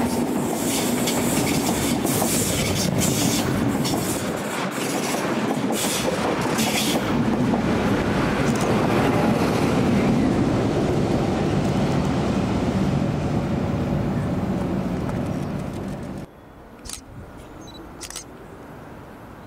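Train running by at close range, its wheels clattering over the track. The sound cuts off suddenly about three-quarters of the way through, leaving a much quieter background with a couple of faint clicks.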